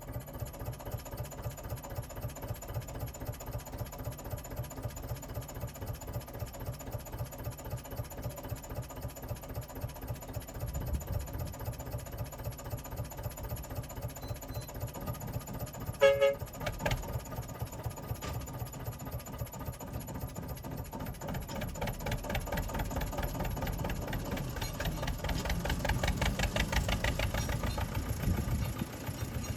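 Small narrow-gauge diesel locomotive engine running with an even pulsing beat. A brief sharp sound comes about halfway through. For several seconds near the end the engine runs louder and harder, then eases off.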